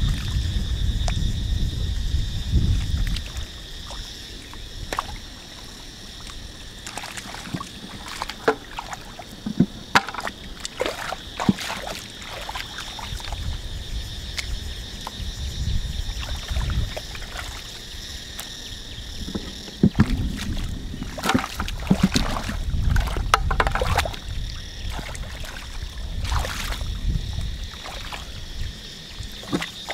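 Shallow muddy paddy water sloshing and splashing in scattered bursts as hands dig and grope through the mud. A low rumble is heard in the first three seconds.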